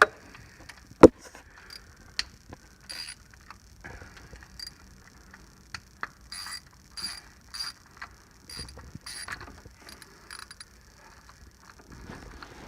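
Ratchet wrench clicking in short strokes as it backs out the 8mm bolts holding a timing chain tensioner, with a sharp click about a second in.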